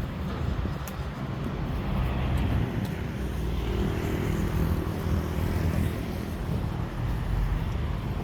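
City street traffic: a motor vehicle's engine running close by over a steady low rumble of road noise, strongest in the middle.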